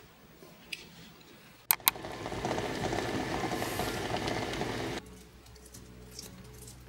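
Eggs boiling in a stainless steel pot, a steady loud bubbling of water that cuts off suddenly about five seconds in. Just before the boiling starts there are two sharp clicks.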